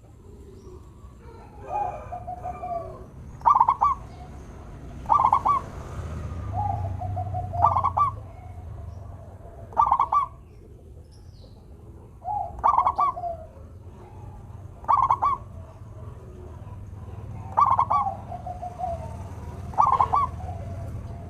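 Zebra dove (perkutut) singing: short, bright cooing phrases repeated every two seconds or so. Several are followed by a lower, drawn-out falling note. A faint low hum runs underneath.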